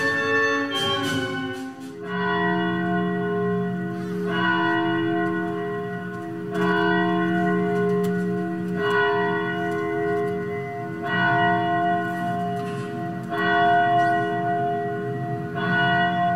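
A bell tolling slowly, seven strokes about two and a quarter seconds apart, each one still ringing when the next is struck. In the first two seconds a sung or played chord dies away.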